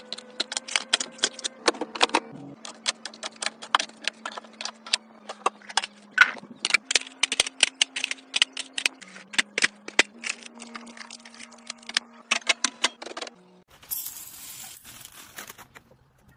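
Rapid clicks and clinks of packaged food, cups and aluminium cans being set into clear plastic fridge organizers and knocking against one another. About 13 s in this gives way to a hissing rustle of loose spice poured into a glass jar.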